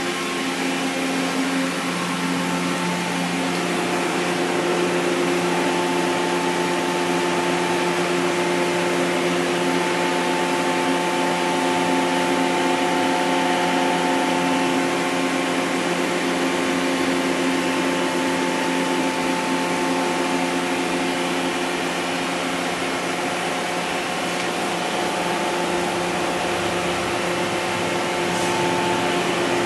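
Powered-up Mori Seiki NVX5100 CNC vertical machining center standing idle, its cabinet cooling fans and auxiliary units giving a steady whir with several steady hum tones. A higher hum tone comes in about five seconds in.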